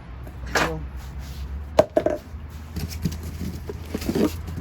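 A few sharp clicks and knocks from handling hand truck wheel parts on the axle, the sharpest about two seconds in and a short cluster near the end, over a steady low rumble.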